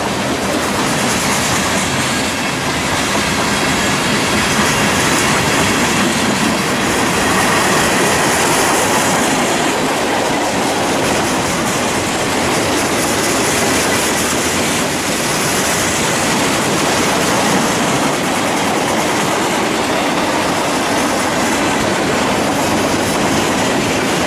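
Norfolk Southern freight train's cars rolling steadily past: a continuous loud rushing and rumbling of steel wheels on the rails.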